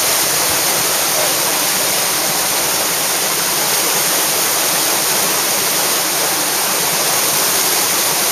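River whitewater rushing and churning through rapids in a steady, loud roar of moving water.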